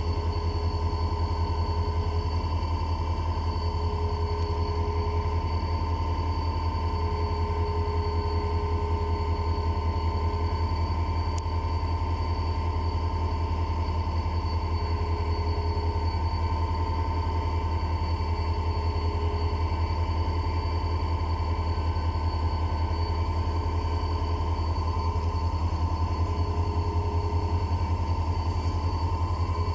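A stationary diesel-electric locomotive idling with a steady low rumble, a continuous high whine running above it.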